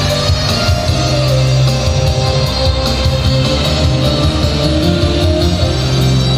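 Music with a steady beat and a moving bass line, playing for a children's dance.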